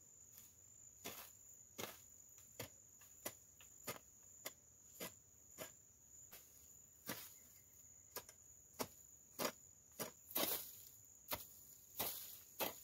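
Footsteps in boots through weeds and brush at a steady walking pace, about one and a half steps a second, with insects giving a steady high-pitched drone behind them.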